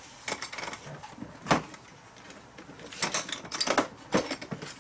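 Hard plastic clicks and knocks from a Keter Connect organizer case being handled and its latches worked: one sharp knock about a second and a half in, then a cluster of clicks between three and four seconds.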